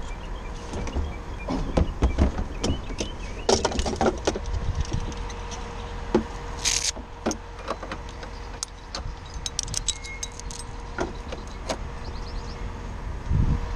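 Clicks, knocks and rattles of tools and gear in a utility bucket truck's fibreglass bucket as it is handled, over the steady hum of the truck running. A brief hiss comes about seven seconds in.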